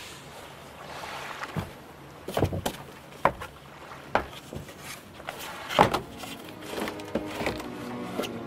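Irregular knocks and clicks over a quiet background, the loudest about six seconds in; soft music with sustained notes comes in near the end.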